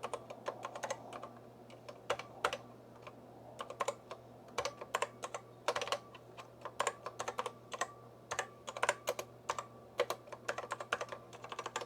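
Typing on a Macintosh Plus keyboard: irregular key clicks in quick runs with short pauses, over a faint steady low hum.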